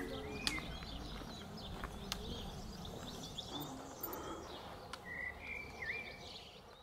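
Small birds chirping and singing, with short high chirps throughout and a couple of clearer whistled notes about five seconds in, over a soft rural background hum and a few faint clicks.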